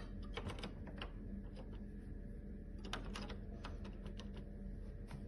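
Faint scattered clicks and taps from new AA batteries being pressed into the plastic battery holder of a roller garage door's bottom-edge transmitter, bunched in the first half-second and again about three seconds in.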